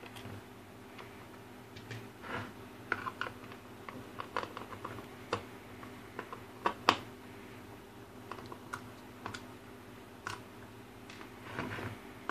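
Irregular small clicks and taps of a screwdriver and screws working on a trail camera's plastic case, with a short scraping of plastic near the end as the case is worked apart. A faint steady hum runs underneath.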